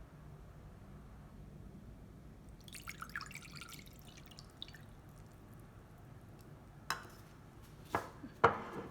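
Water dripping and splashing into a container for a couple of seconds, followed a few seconds later by three sharp knocks, the loudest near the end.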